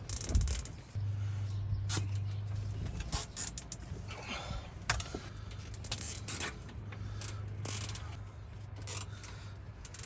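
Plastic zip ties being pulled tight around a metal shelf frame: quick ratcheting zips and scattered clicks and rattles of the shelf being handled.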